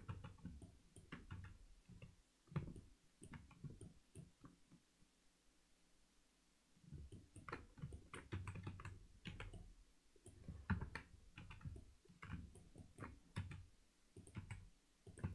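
Faint, irregular computer keyboard and mouse clicks from shortcut keys being pressed, with a lull of about two seconds partway through.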